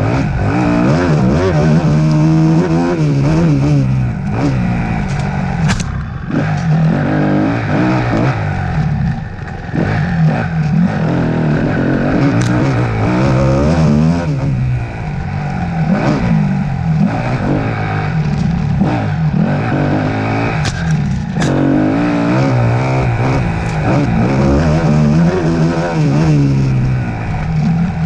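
Off-road motorcycle (dirt bike) engine revving up and down again and again as the rider works the throttle and gears, with scattered knocks and clatter from the bike bouncing over rough ground.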